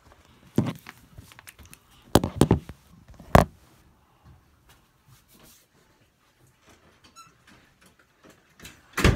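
Scattered knocks and bumps in a small enclosed space, such as a phone camera being handled and set down or someone shifting about: a single knock, a quick cluster, a sharp knock, then a louder bump near the end.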